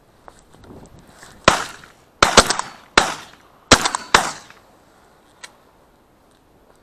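A rapid string of shotgun shots, about six sharp cracks in under three seconds, starting about a second and a half in, fired at ducks flushing from a ditch.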